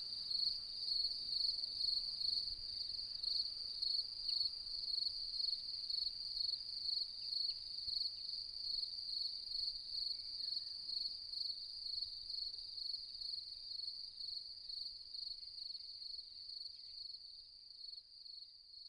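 A cricket chirping: a high, even pulsing chirp repeated a few times a second, fading out over the last few seconds.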